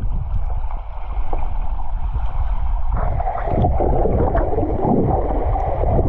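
Swimmer churning through the water, heard muffled through a GoPro action camera in the water: a continuous dull sloshing and gurgling.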